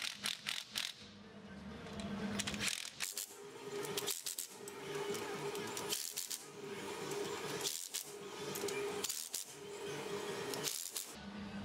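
Cordless impact wrench running the nuts of a mower gearbox slip-clutch pack, hammering in about seven short bursts with pauses between them.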